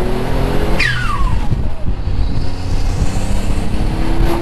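Built twin-turbo 6G72 V6 of a Mitsubishi 3000GT VR4 pulling hard with revs rising. About a second in, the throttle comes off and a whistle falls in pitch as the boost is let go, then the engine pulls up through the revs again. It sounds fine, with no ignition cutout, the fault suspected of spark blowout at high boost.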